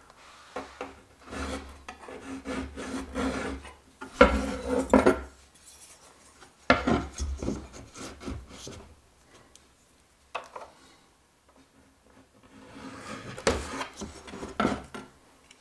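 Pencil scratching on wooden decking in three bouts of strokes, drawing a cut line, with a few sharp knocks in between.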